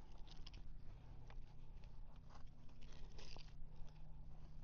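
Scattered small clicks, scrapes and crunches of hands and tools working a stuck hook out of a jack crevalle's mouth.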